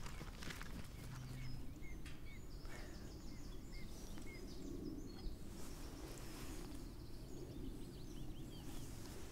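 Outdoor ambience: small birds give short, scattered chirps over a steady low rumble, with the chirps thickest in the first few seconds and again near the end.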